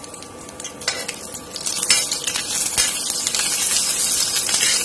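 Dried red chillies, ginger and cumin seeds sizzling in hot coconut oil in an iron kadai: the tempering stage of the curry masala. A metal spatula knocks and scrapes against the pan while it stirs. The sizzle grows louder from about a second and a half in.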